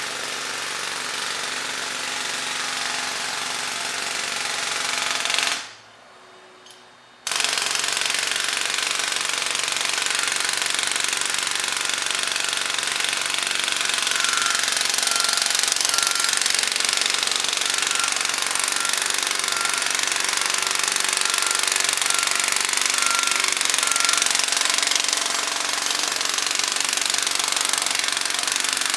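A jackhammer pounding continuously at a road work site, with heavy equipment running under it. The hammering cuts out for about a second and a half around six seconds in. From about halfway through, a steady series of high electronic beeps, typical of a work truck's warning beeper, sounds for about ten seconds over the hammering.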